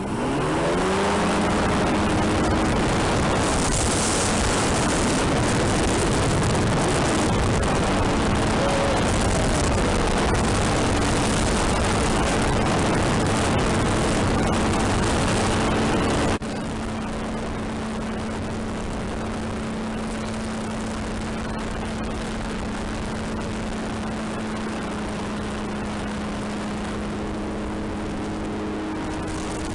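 A motor speeds up in the first couple of seconds, then runs steadily with a constant hum over a loud rushing noise; the sound drops abruptly to a lower level about halfway through.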